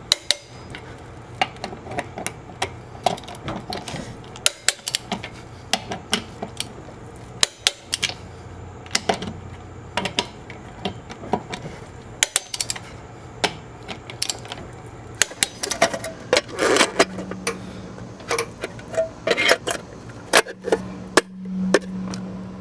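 Lug nuts being tightened with a torque wrench and socket: a run of irregular, sharp metallic clicks from the wrench's ratchet. A low hum comes in twice in the last few seconds.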